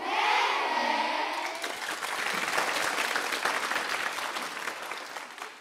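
A group of children clapping and cheering, with high voices shouting over the applause at the start. The applause fades out near the end.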